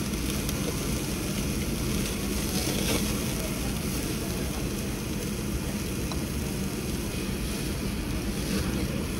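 Beef sizzling on the mesh grate of a gas-fired yakiniku table grill, over a steady low rumble.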